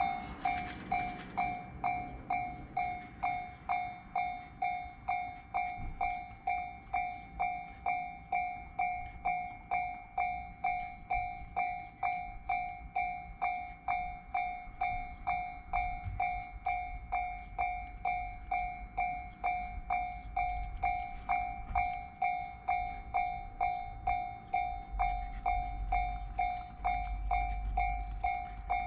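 Japanese railway level-crossing warning bell ringing steadily, about two dings a second. Partway through, a train's low rumble comes in under it and grows toward the end as the train passes.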